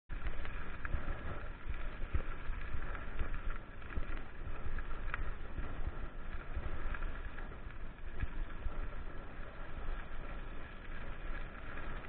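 Mountain bike rolling over a gravel dirt road, heard from a handlebar-mounted camera: a steady rumble of tyres and road vibration with irregular small knocks and rattles.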